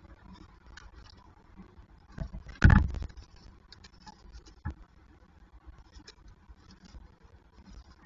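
Young peregrine falcons moving about a nest box floored with gravel and plucked feathers: scattered light scratches and taps. A louder burst of thumping and rustling comes about two and a half seconds in, and a single knock follows a couple of seconds later.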